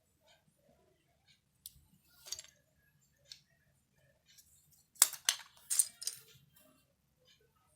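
Hard plastic keyboard parts, such as keycaps, being handled: scattered light clicks and clinks, then a quick run of sharp clacks about five seconds in.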